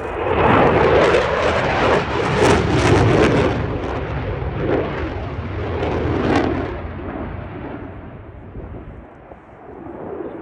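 Eurofighter Typhoon's twin Eurojet EJ200 afterburning turbofans roaring past in a display pass. The roar is loud for the first seven seconds, then fades away and begins to swell again near the end.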